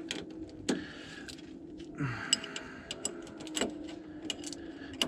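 Irregular metallic clicks and clinks of a hand wrench working the nut of a new sway bar link, tightened by hand, over a steady background hum.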